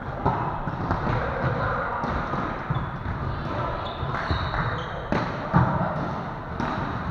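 Volleyball rally in a gymnasium: the ball is struck several times with sharp slaps, the loudest about five and a half seconds in, over players' calls and the echo of the hall.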